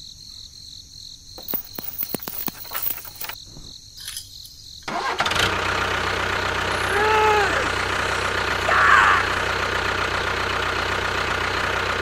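Light metal clicks of a small chain being hooked on. About five seconds in, a tractor engine starts up and keeps running steadily.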